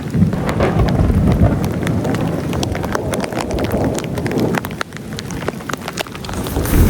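Storm rain with wind buffeting the microphone, and a rapid, irregular patter of sharp taps from drops striking close by. The wind eases briefly twice in the second half.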